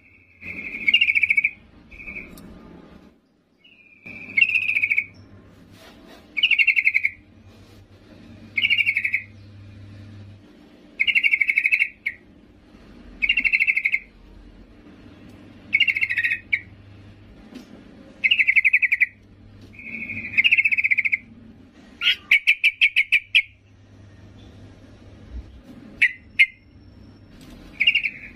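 Yellow-vented bulbul giving short, loud call phrases about every two seconds, with a quicker run of clipped notes about three-quarters of the way through. It is presented as a female's call to draw in males.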